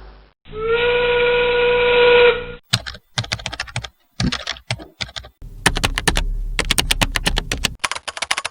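A pitched whistle-like tone, about two seconds long, that slides up at the start and then holds steady and cuts off. It is followed by a fast, irregular run of sharp clicks with brief pauses, in the manner of keys being typed.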